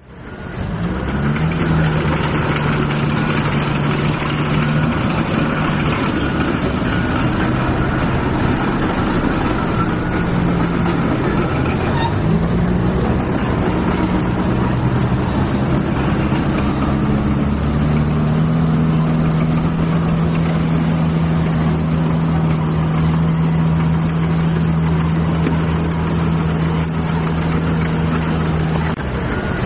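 A vehicle engine running steadily, its pitch rising in a glide a few times, near the start, around twelve seconds in and around seventeen seconds in.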